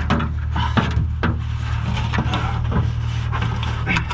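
Scattered knocks, clicks and rubbing as a person shifts and works wedged inside a Cessna 150's thin aluminium tail fuselage, over a steady low hum.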